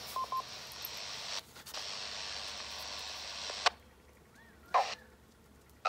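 Handheld VHF/UHF ham radio's speaker hissing with static while the repeater's carrier is up, with two short beeps just after the start. The hiss cuts off with a click near four seconds, and a brief burst of static follows about a second later.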